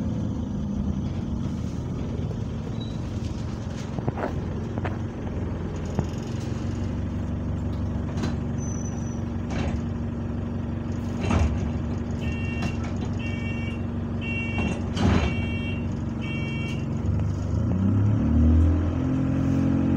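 Bus engine idling at a stop with several sharp knocks and rattles; from about 12 s in, five beeps of the door warning sound as the doors close. Near the end the engine note rises as the bus pulls away.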